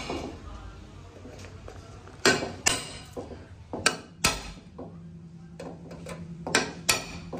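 Hammer knocking a small hand-held peg against the metal pipe frame of a charpai, about seven short sharp knocks, mostly in quick pairs with pauses between.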